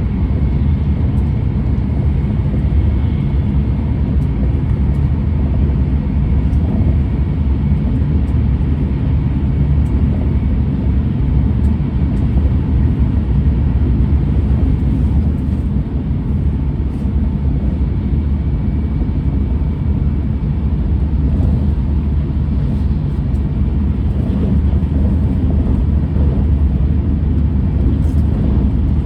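E6 series Shinkansen running at speed, heard from inside the passenger car: a steady low rumble of wheels and track with a faint steady whine above it. The train is fitted with Toshiba IGBT traction inverters.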